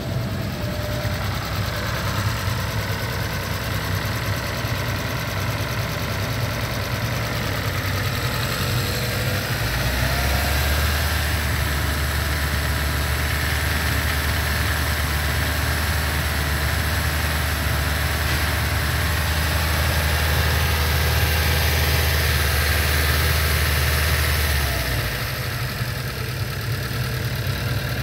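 2017 Hyundai Tucson's direct-injection four-cylinder gasoline engine running steadily at idle under the open hood. It has a louder low drone from about ten to twenty-five seconds in.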